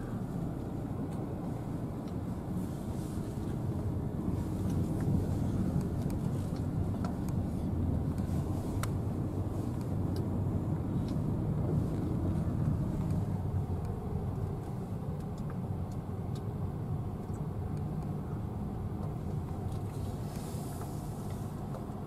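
A moving car's engine and tyre noise heard from inside the cabin: a steady low rumble, a little louder in the middle.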